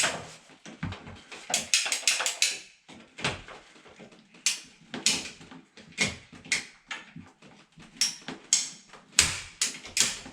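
Ratcheting plastic-pipe cutter working through a plastic water line: a string of sharp clicks and snaps, often several in quick succession, as the lever is squeezed and the blade ratchets through the pipe.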